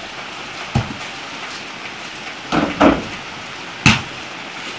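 Steady hiss of rain falling, with a dull thud about a second in, a few knocks a little past halfway, and one sharp slap near the end as a ball is caught and thrown.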